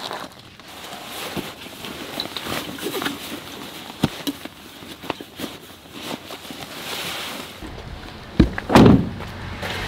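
Footsteps and scuffing on gravel with small clicks, then a truck door is worked with a heavy thunk near the end.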